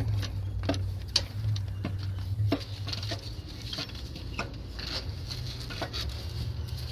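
Scattered light knocks and clicks as the unbolted alternator and nearby parts are handled and shifted in the engine bay, over a steady low hum.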